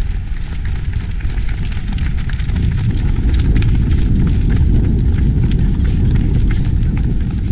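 Wind buffeting the microphone of a body-worn camera on a running orienteer, a loud low rumble that strengthens a couple of seconds in, with quick footfalls of a pack of runners on pavement.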